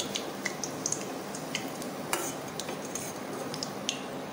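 Hot oil sizzling in a steel kadhai, with a few light clinks of a steel spoon against the pan and plate as the fried cutlets are lifted out.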